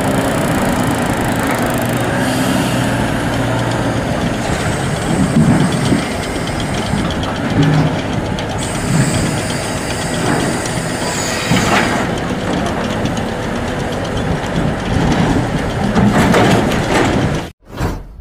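Diesel engine of a Volvo wheel-loader log handler running under load, with knocks and clatter of logs in its grapple being set onto a log deck. The sound cuts off suddenly near the end.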